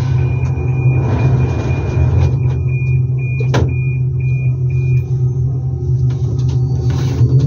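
Alstom Metropolis metro train standing at the platform with a steady low hum, while a high warning tone sounds and breaks into short beeps before stopping about five seconds in: the door-closing signal before departure. A sharp knock comes about three and a half seconds in.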